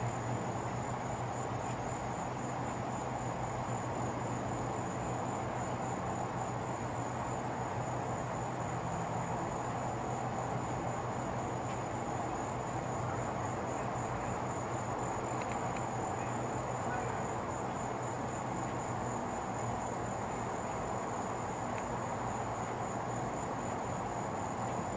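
Crickets trilling: a steady, rapidly pulsing high note that never breaks, over a constant low hum and background rumble. The hum weakens about three-quarters of the way through.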